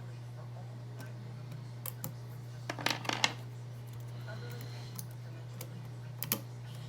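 Small clicks and scrapes of a lock pick working the pins of a Yale pin-tumbler cylinder held under tension, with a cluster of sharper clicks about three seconds in and another near the end, over a steady electrical hum.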